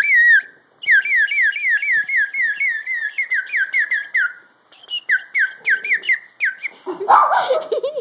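Water-filled bird-call whistle blown in quick chirping runs, about three or four chirps a second, with the water making it warble. There is a short break about four seconds in. Near the end a lower, wavering sound takes over.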